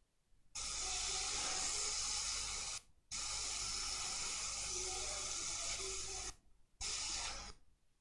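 Hot air rework station blowing a steady hiss of air as a capacitor on the laptop's 19-volt rail, suspected of shorting it, is desoldered. The hiss starts about half a second in, cuts out briefly near three seconds, and stops twice near the end.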